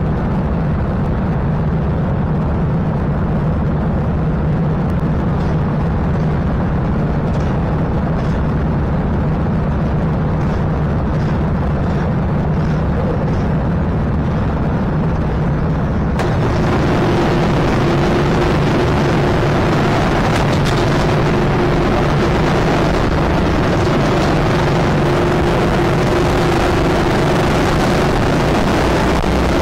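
Go-kart engines running steadily on the starting grid, then rising in pitch and getting louder as the karts accelerate away about sixteen seconds in.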